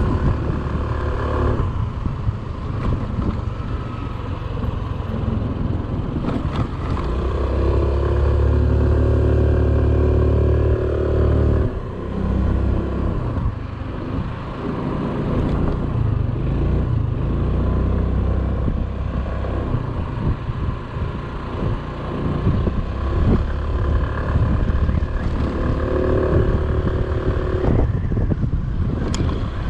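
Motorcycle engine running steadily while riding, with road and wind noise. It pulls harder for a few seconds about a third of the way in, then eases off.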